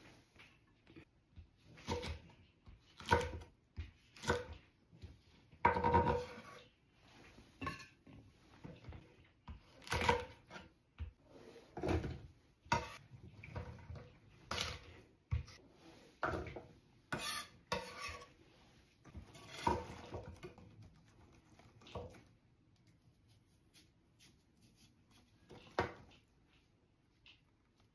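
Kitchen knife knocking on a cutting board in irregular single cuts as chillies and green onions are sliced, mixed with the clatter of handling the knife and a blender jar.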